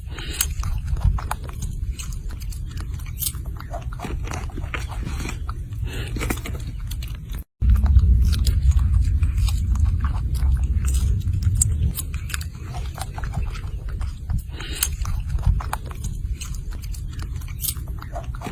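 Close-up chewing and biting on something crunchy: many sharp crunches over a low rumble. The sound cuts out for an instant about seven and a half seconds in, then comes back louder.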